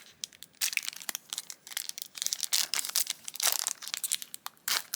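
Yu-Gi-Oh booster pack's foil wrapper being torn open and crumpled by hand, a run of crinkling and tearing bursts.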